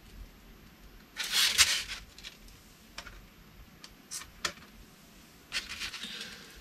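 Hands handling a foam radio-control airplane: a short rustling scrape a little over a second in, then a few light clicks and taps, and a softer rustle near the end.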